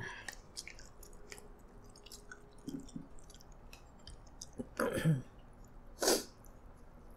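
Close-miked eating sounds: small wet mouth clicks and chewing, with two louder short noisy bursts about five and six seconds in.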